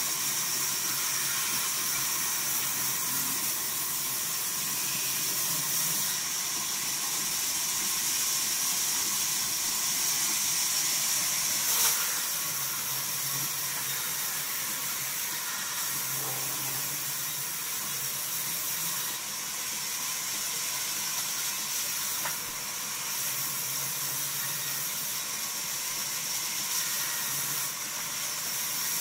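Band sawmill blade ripping lengthwise through a log slab as it is pushed along the table: a steady high hiss, with one sharp click about twelve seconds in.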